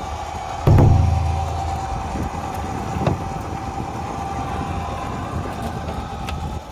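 A fishing boat's rope line hauler hauling in a shrimp-trap line. About a second in, a louder, deeper motor hum starts suddenly and runs on steadily over a fainter steady engine hum, with a single knock about three seconds in.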